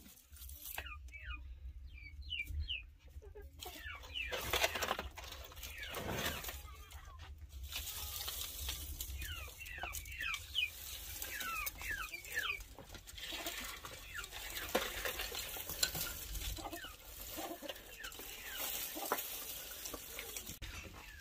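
Dry straw and stalks rustling and crackling as they are fed by hand into a clay tandoor oven over glowing embers. Hens cluck in short bursts behind it, once near the start and again about ten seconds in.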